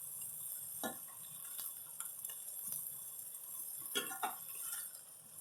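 A few clinks and knocks of kitchen utensils against a plate and cutting board, one about a second in and two close together around four seconds in, over the steady hiss of a kitchen fan.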